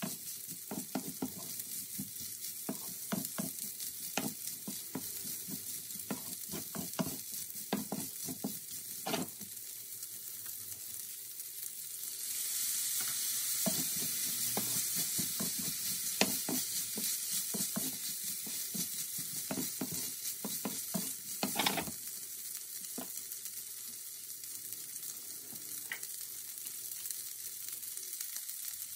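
Rice with carrots and peas sizzling in a hot nonstick pan while a wooden spatula stirs and scrapes it, with many short scrapes and clicks. A little before halfway the sizzle grows louder and hissier as soy sauce goes into the pan, then eases off again in the last third.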